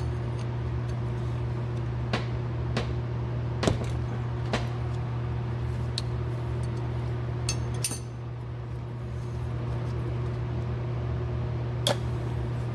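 Scattered sharp clicks and taps of small metal carburetor parts and hand tools being handled, about eight in all, the loudest near the middle and near the end. A steady low hum runs underneath.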